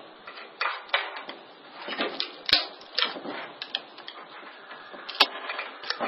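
Flat-tip screwdriver scraping and clicking against a microwave oven transformer's steel core and copper winding as it is wedged in to pry the coil loose. The clicks and scrapes are irregular, with two sharper clicks about two and a half and five seconds in.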